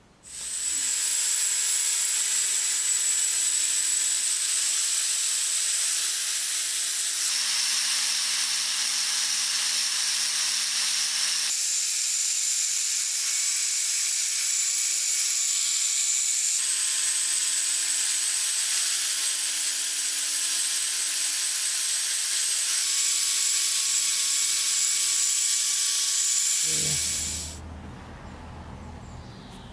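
Angle grinder running with its abrasive disc against the steel pincers: a loud, steady grinding hiss with a high motor whine. It jumps abruptly in pitch a few times. It stops about three seconds before the end, leaving quieter outdoor background.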